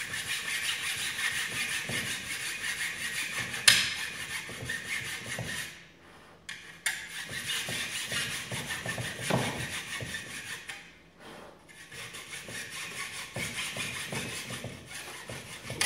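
Hacksaw cutting through a circuit board and its thick copper heat sink in quick back-and-forth strokes, with a sharp knock about four seconds in and short pauses around six and eleven seconds in.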